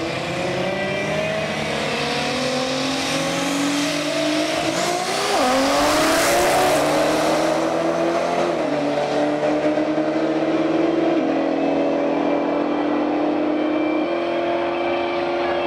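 A Nissan GT-R and another car launch side by side and accelerate hard down a drag strip. The engine pitch climbs and drops back at upshifts about five and eight seconds in. The loudest moment is a rush of noise about six seconds in.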